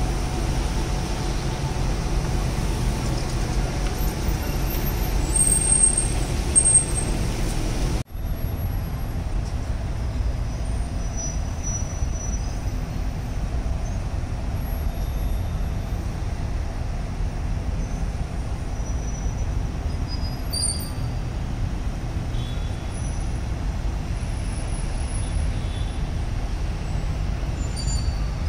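Cars driving slowly past, a steady low rumble of engines and traffic, with a brief louder burst about six to seven seconds in. The sound breaks off abruptly about eight seconds in, and a similar steady traffic rumble carries on.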